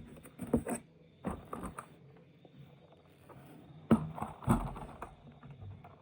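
Toy vehicles and packaging being handled: a few scattered scraping and clicking sounds, the sharpest about four seconds in.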